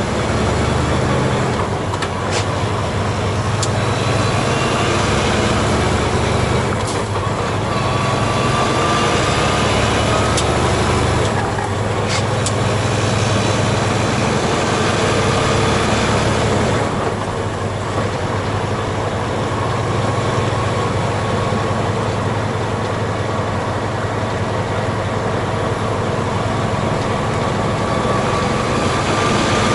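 Semi truck's diesel engine running under way, heard from inside the cab along with tyre and road noise. The low drone steps in pitch a few times, and a faint whine rises as the truck gathers speed.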